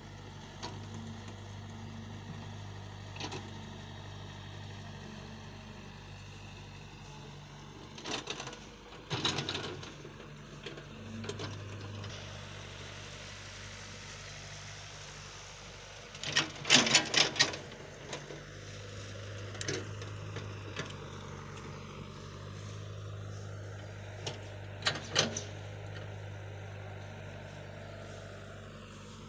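An excavator's motor running steadily, with short bursts of clanking and rattling, the loudest cluster a little past halfway through.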